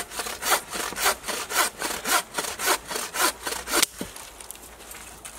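Hand bow saw (a 22-inch model) cutting through a branch, its blade rasping back and forth in even strokes about two a second. The strokes stop near the end with a sharp crack, leaving it quiet.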